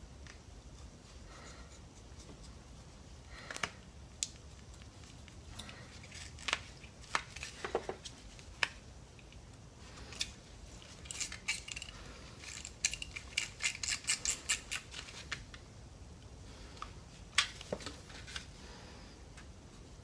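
Utility knife cutting the excess rubber of a tyre repair plug off flush with the tread: scattered sharp clicks and short scrapes of the blade against rubber. In the middle comes a quick run of about a dozen clicks, and near the end one louder click.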